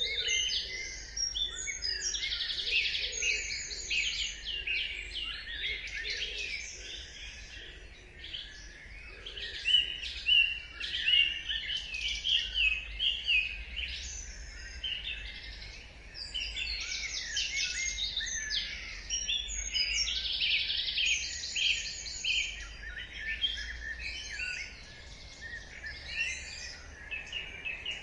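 Dawn chorus: many songbirds singing at once, overlapping chirps and rapid high trills of quickly repeated notes.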